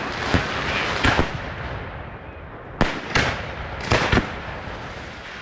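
Fireworks display: firework shells bursting in sharp bangs, a cluster about a second in and another run around three to four seconds in, with a noisy haze of sound between the bursts.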